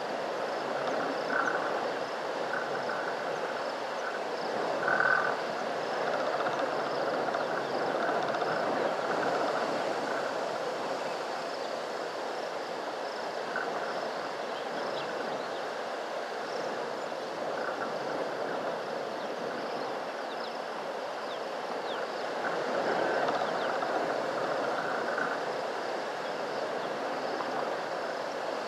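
Frogs calling in a steady, dense chorus, with short higher calls here and there.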